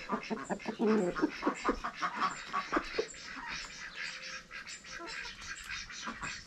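Domestic chickens and runner ducks calling in a busy run of short clucks and quacks, with a few stronger pitched calls in the first half.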